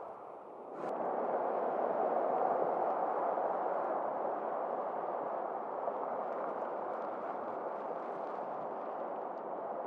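Steady tyre and road noise of a vehicle driving on asphalt, getting louder about a second in and then holding even.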